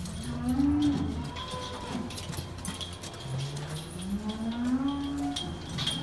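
Holstein dairy cows mooing: two long moos that rise in pitch, one at the start and a longer one from about three seconds in.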